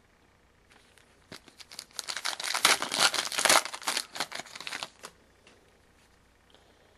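A trading card pack's wrapper being torn open and crinkled. Dense crackling starts about a second in and stops about four seconds later.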